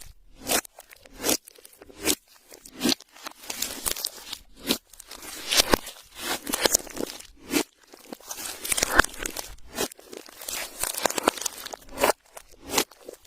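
Hands squishing and kneading clear slime with glitter and makeup mixed in, giving sticky crackling and popping in quick repeated bursts, a little more than one a second.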